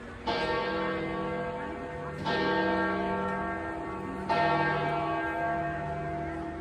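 The bells of St. Peter's Basilica ringing. There are three strikes about two seconds apart, and each rings on and overlaps the next.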